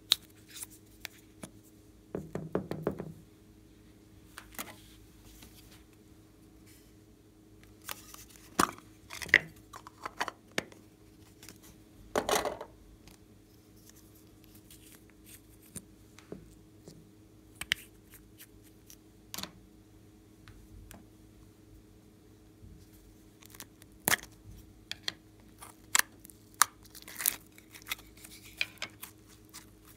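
Scattered sharp clicks, taps and short rustles of hands handling small plastic cosmetic tubes and pulling off their caps, over a faint steady hum.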